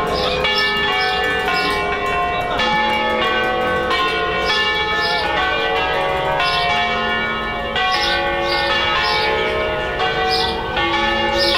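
Several bronze church bells, hung on wheels, swinging and ringing together in a peal: overlapping strokes, a few a second, each leaving a long ringing tone.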